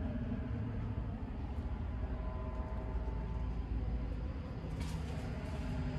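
Steady low rumble, with a brief noisy rush about five seconds in.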